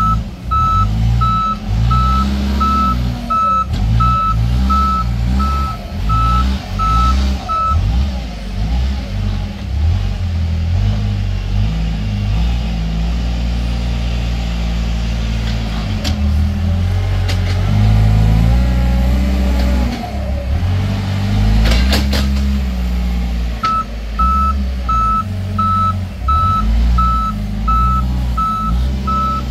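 The diesel engine of a heavy earthmoving machine revving up and down under load as it works to free a stuck machine, with a reversing alarm beeping about twice a second for the first several seconds and again near the end. A couple of sharp knocks come in the middle.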